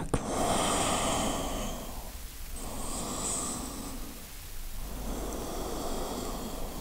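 A woman breathing slowly and audibly in yoga: three long breaths with short pauses between them.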